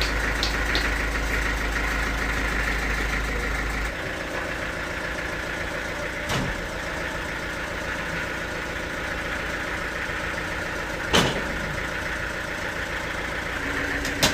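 Sawmill machinery running steadily with an engine-like hum that shifts in tone about four seconds in, and three sharp knocks, the loudest about eleven seconds in.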